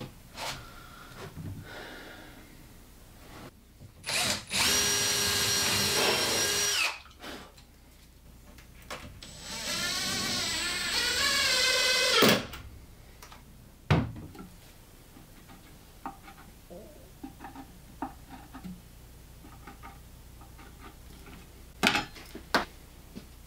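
Cordless drill running in two bursts of about two and a half seconds each, the first at a steady pitch, the second with a wavering pitch as it works. Light knocks and taps of handling come between and after them.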